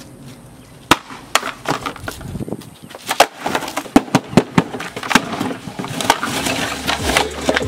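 A cardboard speaker box and its styrofoam packing being grabbed and knocked about on concrete: one sharp crack about a second in, then a quick run of clattering knocks and crackles that thickens into a continuous rustling clatter near the end.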